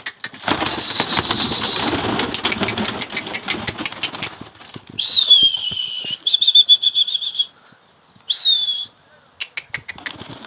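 A flock of domestic pigeons taking off together, a dense clatter of flapping and wing-claps lasting about four seconds. Then come whistles: one falling, one warbling at a steady pitch, and a short one near the end, the kind used to keep a released flock flying.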